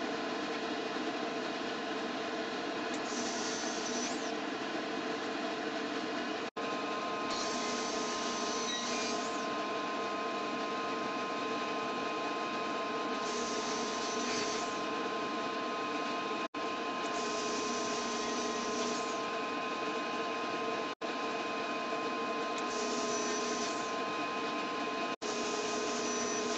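SawStop 1.75 hp cabinet table saw running with a steady hum while its 10-inch carbide blade cuts a hardwood cutting board of walnut, maple and cherry in several passes. Each cut adds a brighter hiss over the motor for a second or two. The sound drops out for an instant four times.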